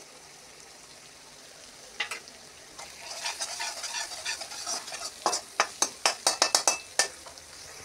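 Steel slotted spoon stirring and scraping masala frying in oil in a metal kadhai, with sizzling, just after garlic paste has gone in. It is quiet for the first two seconds, then the sizzling rises, with a quick run of sharp scrapes and clinks of the spoon on the pan about five to seven seconds in.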